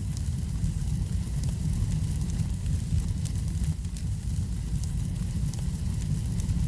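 Wood fire in a fireplace crackling, with frequent small sharp pops over a steady low rumble.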